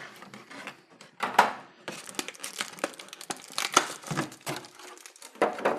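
A clear plastic blister tray and the thin plastic wrapping around a dinosaur figure crinkling and crackling as they are pried apart and handled. The crackles are irregular, with louder ones about a second in and near the end.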